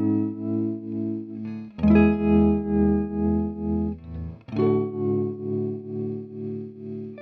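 Electric guitar playing sustained chords through an effect that makes the level pulse about twice a second. The chord changes twice, about two seconds and four and a half seconds in.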